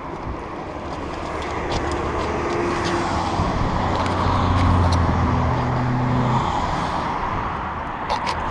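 Road traffic on the bridge: a motor vehicle passing close by, its engine and tyre noise swelling to a peak around the middle and fading again.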